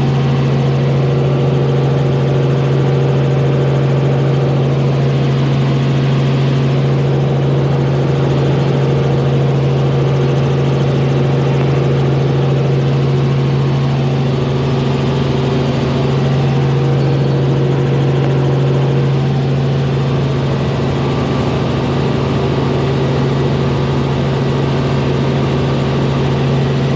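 Helicopter in cruising flight, heard from inside the cabin: a steady, loud drone of engine and rotor with a strong low hum. It cuts in suddenly at the start and cuts off suddenly at the end.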